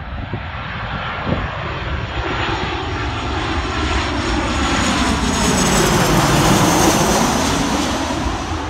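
Ryanair Boeing 737 jet on final approach, passing low overhead: the engine noise grows steadily louder, peaks about six to seven seconds in, then begins to fade, with a hollow whoosh that sweeps down in pitch and back up as the aircraft goes over.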